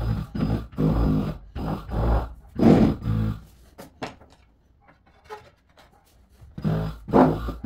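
Cordless handheld tile vibrator buzzing against porcelain floor tiles in short bursts of under a second, bedding each tile into the mortar; it pauses for about three seconds in the middle, then starts again near the end.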